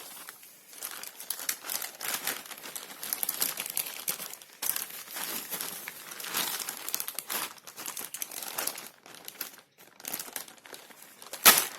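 Packaging crinkling and rustling irregularly as a keyboard is unpacked by hand, with one loud sharp crackle near the end.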